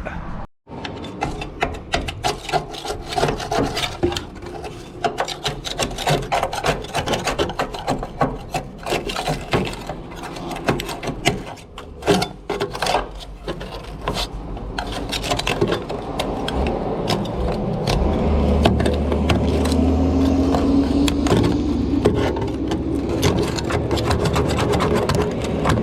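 Irregular scraping and rasping at rusty sheet metal and old seam sealer, cleaning the area back for rust repair. A steady low hum comes in about two-thirds of the way through.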